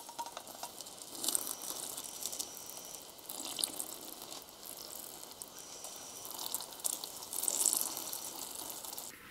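Boiling water poured in a steady stream from a stainless-steel kettle into glass jars packed with grated black radish and carrot, filling them for canning.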